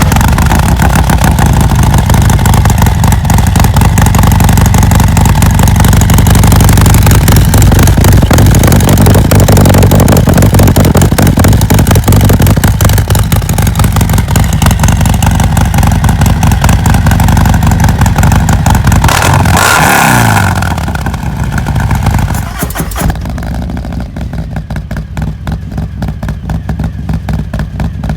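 Harley-Davidson Milwaukee-Eight 114 V-twin, with an S&S 475 cam, running loud through an S&S SuperStreet 2-into-1 exhaust with the dB killer removed, just after start-up. It holds a steady fast idle, then about 20 seconds in the pitch falls and it settles to a quieter, pulsing idle.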